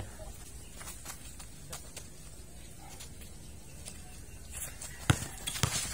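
Quiet outdoor background with a few faint ticks, then near the end a basketball bouncing on a concrete court, two sharp bounces about half a second apart.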